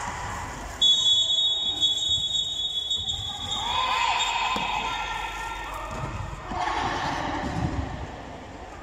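A referee's whistle blows about a second in, one steady high tone held for two to three seconds. A player's shout and the knocks of a volleyball being served and played follow.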